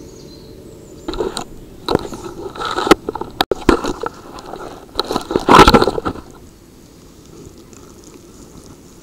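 Camera handling noise: a string of scrapes, knocks and rustles as the handheld camera is moved and rubbed against a jacket, loudest about five and a half seconds in, stopping about six seconds in.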